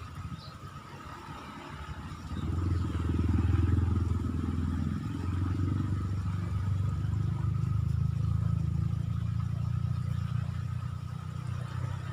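A motor vehicle engine, most like a motorcycle, running close by. It comes in about two seconds in and holds steady.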